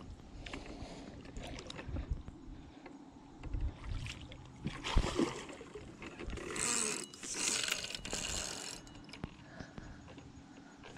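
A hooked fish thrashing and splashing at the surface close to the bank, in several bursts from about four to nine seconds in, with a spinning reel being wound as it is played.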